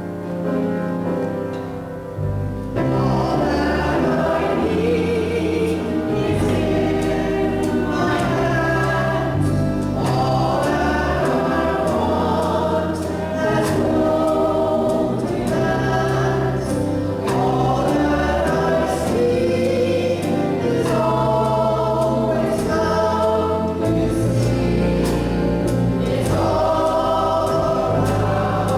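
Group of voices singing a gospel-style song with keyboard accompaniment; the first couple of seconds are instrumental, and the voices come in about three seconds in.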